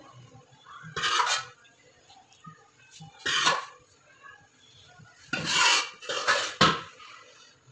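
Metal spoon scraping and clinking against a large metal pot while chicken masala is spread over the rice layer of a biryani. About five short strokes, the loudest in quick succession after the middle.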